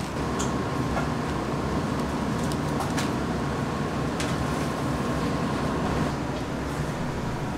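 Steady low mechanical hum with a faint high tone that stops near the end, and a few light clicks and taps.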